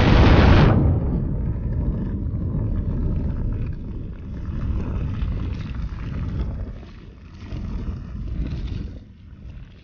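Burning grass roaring with a low rumble, opening with a sudden loud burst that dies down within a second; the roar then swells and ebbs and falls off near the end.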